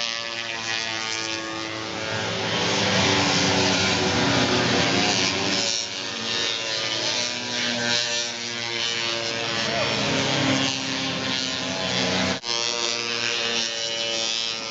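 Single-cylinder two-stroke snowmobile engines running hard as racing sleds go by, several engine notes overlapping and shifting in pitch. The sound drops out sharply for a moment about twelve seconds in.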